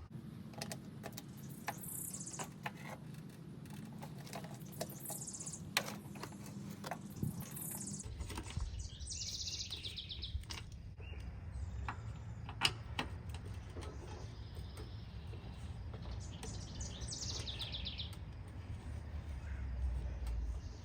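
Small birds singing in short phrases several times, over scattered clicks and light taps from hand tools working on the mower.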